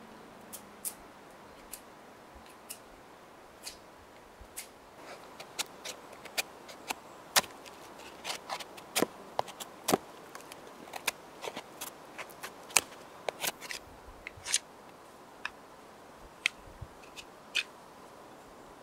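A knife whittling a wooden stick: a string of irregular, sharp cuts and scrapes of the blade through the wood. They come sparsely at first and quick and close together through the middle.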